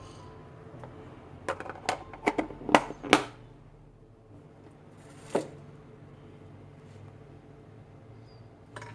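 A quick run of about seven sharp clicks and knocks in under two seconds, then a single knock a couple of seconds later and a fainter one near the end, with a faint low hum underneath.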